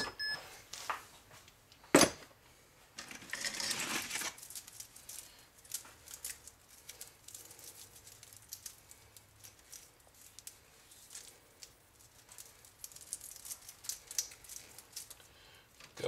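Small scrap pieces and a bundle of wires being handled on a workbench: a sharp knock about two seconds in, a rustling swish shortly after, then light scattered clicks and rattles of metal and wire.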